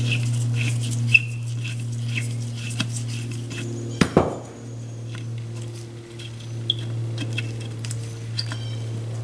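Small clicks and ticks of a Phillips screwdriver turning the butt plate screws out of a rifle stock, with a sharp knock about four seconds in, over a steady low hum.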